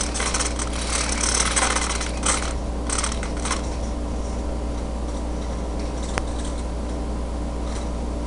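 Scratchy rustling and rubbing in several bursts during the first three and a half seconds, over a steady low hum, with a single sharp click about six seconds in.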